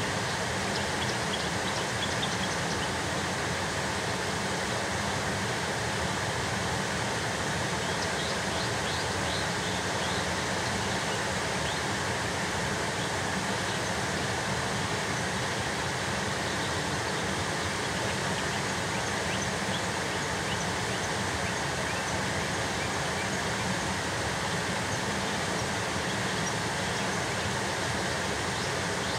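Steady rushing background noise, even and unbroken, with faint high-pitched bird notes a few times.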